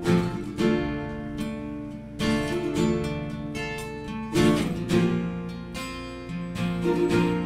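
Acoustic guitar strumming chords in a steady rhythm, an instrumental intro with no singing yet.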